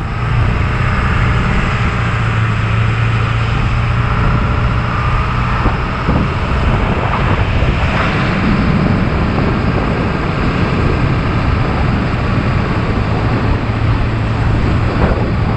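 Motor vehicle running steadily, a constant low hum under an even rushing noise.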